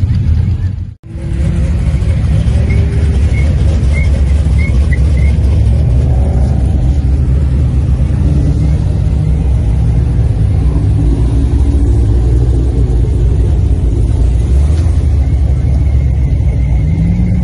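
A car engine running loud and steady at low revs, with a sudden brief dropout about a second in.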